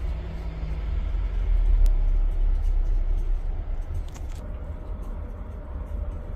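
Steady low rumble that swells a little about two seconds in, with a faint steady tone joining about four seconds in.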